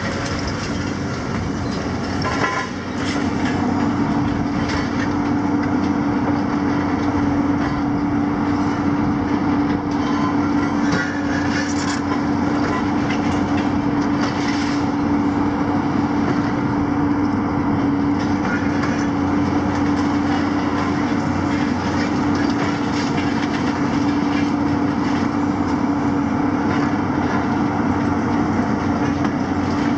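Demolition excavators, a Hitachi 250 and a JCB, running steadily. Their diesel engines rise to a louder, steady drone about three seconds in as one machine works its hydraulics. Throughout there is continuous clattering and crunching of rubble in the demolition grabs.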